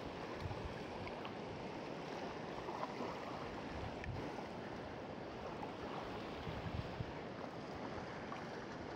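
Faint, steady wash of choppy river water and wind on the microphone, with a few small faint ticks.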